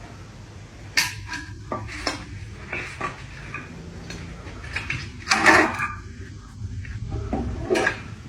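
Metal parts clanking and knocking against each other, handled at irregular intervals, with a louder clatter a little past the middle.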